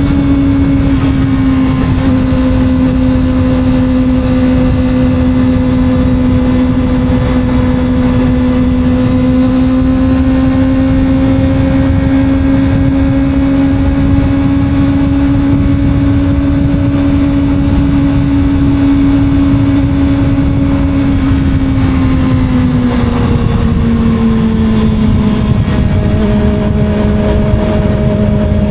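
Small sport motorcycle engine running at a steady cruise over a low rush of wind noise, its pitch easing down a little from about 22 seconds in as the revs drop.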